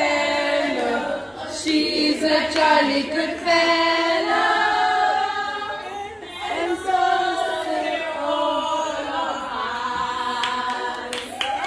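A group of women singing a song together without instruments, with long held notes.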